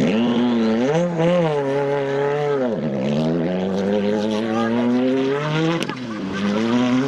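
Ford Fiesta rally car's turbocharged engine revving up and down as it drives across a grass field. The revs drop sharply about three seconds in and again near six seconds, then climb again.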